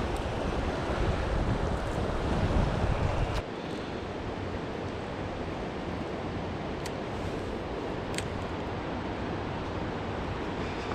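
Steady rush of flowing water with wind buffeting the microphone. The low buffeting drops off sharply about three and a half seconds in, and two faint ticks come later.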